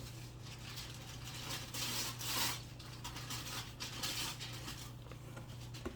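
Comic books and paper being handled: rustling and rubbing swishes, the loudest about two seconds in and again around four seconds, over a steady low hum.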